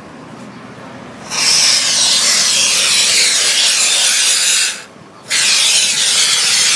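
Can of Würth expanding foam spraying through its straw nozzle: a loud hiss that starts about a second in, breaks off briefly near five seconds, then starts again.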